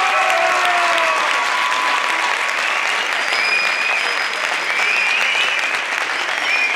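Audience applauding steadily, with a few shouted cheers over the clapping in the first second or so.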